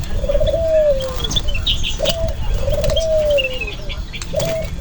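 Empo jeruk bird cooing: twice a short note followed by a longer call that starts with a quick warble and then slides down in pitch. Faint high chirps of smaller birds are heard between the calls.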